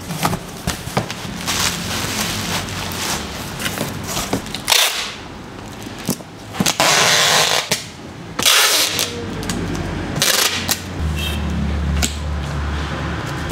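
Cardboard box packing: handling knocks and rustles of the carton and bubble wrap, and packing tape pulled off a handheld tape gun in loud tearing screeches. The longest screech comes about halfway through, with a shorter one a second later.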